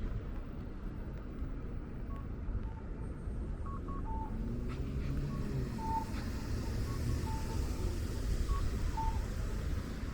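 Electronic beeps from an audible pedestrian crossing signal: short two-note calls, a higher note then a lower one, repeating about every second and a half. Under them runs a steady low rumble of city traffic and rain.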